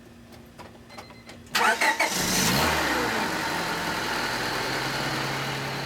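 A 2000 Honda Civic's four-cylinder engine is cranked by the starter about a second and a half in, catches almost at once, flares briefly and settles into a steady idle. This is the test start after an oxygen sensor replacement, and the engine starts normally.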